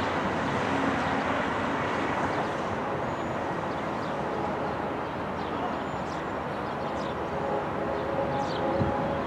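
Steady rumble of a distant diesel freight train approaching, heard over outdoor traffic noise. Faint steady tones come in over the last few seconds.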